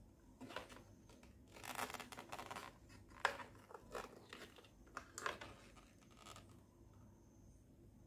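Handling noise from a plastic aquarium air pump and its power cord being turned over in the hands: irregular rustling and scraping, with a sharp click about three seconds in. The pump is not running.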